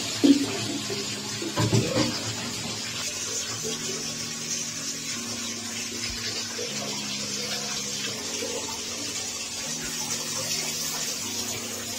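Water running steadily from a tap, as when bathing a cat, with two brief louder sounds in the first two seconds.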